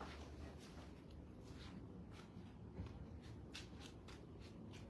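Near silence with faint scattered ticks and rustling.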